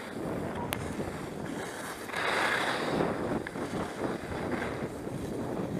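Skis sliding and scraping over packed, groomed snow on a downhill run, with wind rushing over the microphone; a louder scrape of the edges comes about two seconds in.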